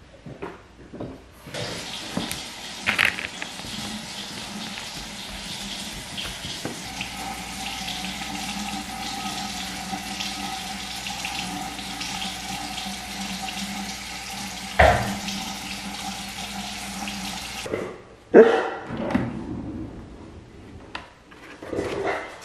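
Bathroom sink faucet running steadily, turned on about a second and a half in and shut off abruptly after about sixteen seconds, with a couple of sharp knocks while it runs. A few clattering knocks follow once the water stops.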